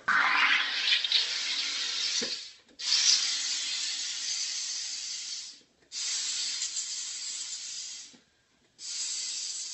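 Home soda carbonation machine (SodaStream) injecting CO2 into a bottle of wine: four long hisses of gas, each two to three seconds, with short breaks between them.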